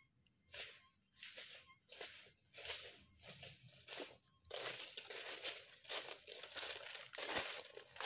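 Footsteps crunching through dry fallen leaves. At first they come as separate steps about two a second, then from about four and a half seconds in they turn into a louder, denser crackle of leaves close by.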